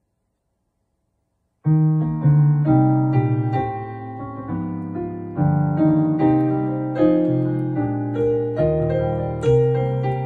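Piano voice of a Yamaha PSR-SX900 arranger keyboard playing a slow run of sustained chords, beginning after about a second and a half of silence.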